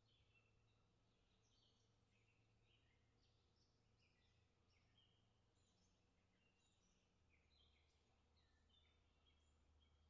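Eurasian skylark singing a long, unbroken stream of quick, varied high chirping notes, very faint.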